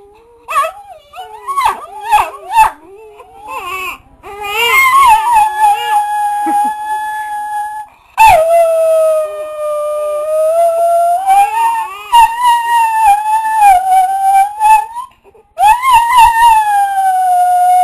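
A dog howling: short, wavering cries in the first few seconds, then three long howls of several seconds each that slide up and down in pitch.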